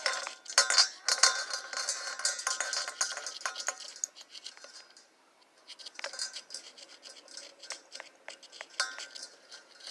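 A key scraping at a stick of egg chalk, a dense scratching with sharp clicks for about four seconds. It dies down around five seconds in, then comes back as scattered scrapes and clicks.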